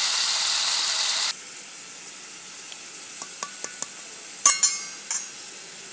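Onion and tomato masala sizzling in oil in a kadhai, cut off abruptly about a second in. Then a few light ticks and two sharper ringing clinks of a steel spoon against a steel bowl of gram flour.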